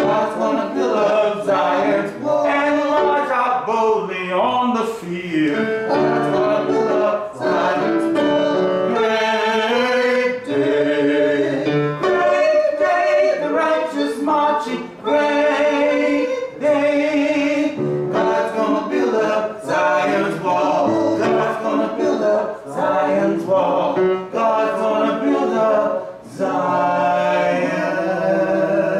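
A small group of singers, men and women together, singing a church anthem.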